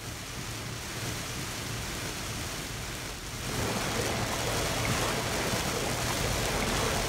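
Heavy rain falling on a car's windshield and roof while driving, heard from inside the car, with a low road rumble underneath. It fades in at the start and grows louder about halfway through.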